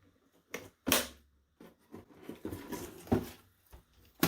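Plastic parts of a robot vacuum's dust bin and filter being handled and snapped back into place: a sharp click about a second in, rustling handling noise, and another knock about three seconds in.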